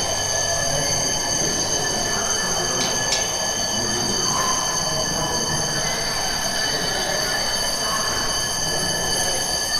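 Emergency alarm sounding one continuous high-pitched tone, the signal to drop, cover and hold during an earthquake drill. Crowd noise sits beneath it, with two short clicks about three seconds in.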